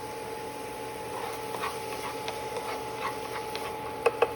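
A spoon clinking and scraping lightly while spooning honey into a simmering mix, then two sharp ringing taps of the spoon near the end, over a steady faint hum.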